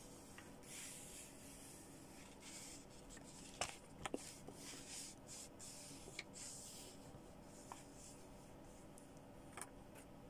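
Faint rustling and rubbing of a fold-out paper instruction leaflet being handled, with a couple of light ticks about four seconds in.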